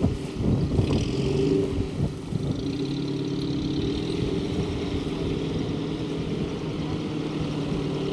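A motor or engine running steadily, a low hum made of several held tones, with a few brief knocks in the first two seconds.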